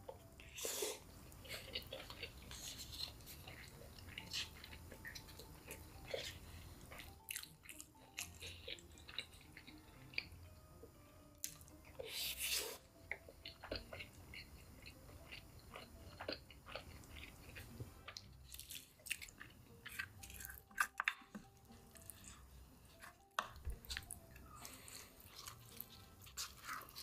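Close-up mouth sounds of someone chewing and biting crispy breaded KFC Crousty chicken: irregular crunches and wet chewing, with a few louder crunching bites.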